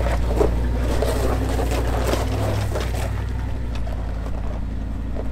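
Chevy pickup engine running at low speed while the truck crawls up a rocky slope, with rocks and gravel crunching and popping under the tyres. The crunching thins out after about three seconds, leaving a steady engine hum.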